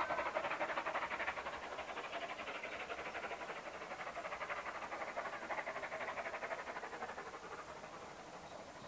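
Steam-hauled passenger train running away into the distance, a quick even beat fading steadily as it goes.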